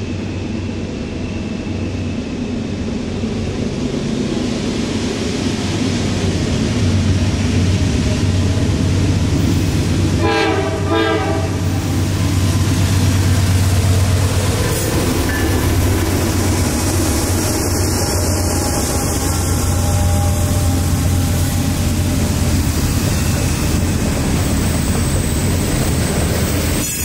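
Norfolk Southern diesel locomotives approach and pass with a freight train, their engine drone building. About ten seconds in, the horn sounds two short blasts. The hopper cars then roll past behind them.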